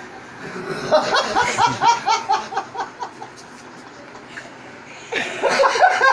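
A man laughing in a quick run of 'ha-ha' bursts, about four a second, starting about a second in and lasting a couple of seconds, with another burst of laughter near the end.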